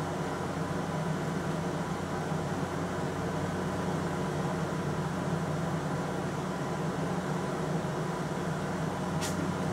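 Steady machine hum of room equipment, with several fixed tones and no change in level. One short click about nine seconds in.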